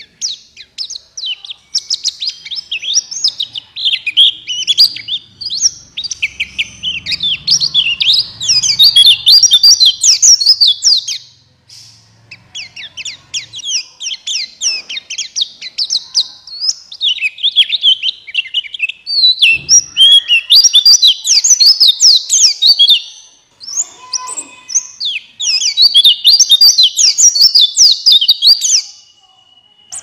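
Male buxtoni white-eye (pleci) singing a fast, dense twittering song in long phrases. The song pauses briefly twice and stops shortly before the end.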